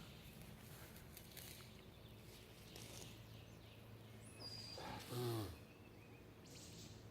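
A cat meows once, a short call rising and falling in pitch, about five seconds in, with a faint high chirp just before it; otherwise quiet.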